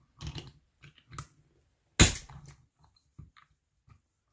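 Old crystal of a Seiko Monster dive watch being pushed out of its case in a watch crystal press. A few faint creaks and clicks as the press bears down, then one loud, sharp crack about two seconds in as the crystal pops free. It sounds like something smashed, but nothing broke.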